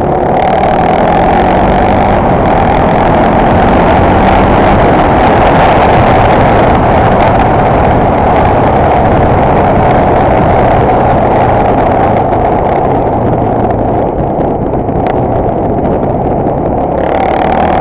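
BMW G650X Moto's single-cylinder engine running steadily under way, heavily mixed with wind rush on the helmet-mounted camera.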